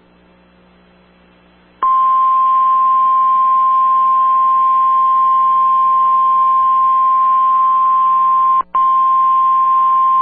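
Faint radio hiss and hum, then about two seconds in a NOAA Weather Radio warning alarm tone starts: one steady, loud, high beep at about 1050 Hz, broken by a very brief dropout near the end. The tone signals that an emergency warning, here a tornado warning, is about to be read.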